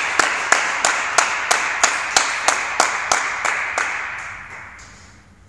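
Spectators applauding after a point, with sharp, evenly timed claps about three a second that fade away over the last second or two.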